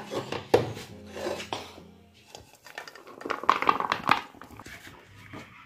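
A serving spoon scraping and knocking against a cooking pan as cooked poha is scooped out and served onto a plate. The scrapes and clinks come irregularly and are busiest about three to four seconds in.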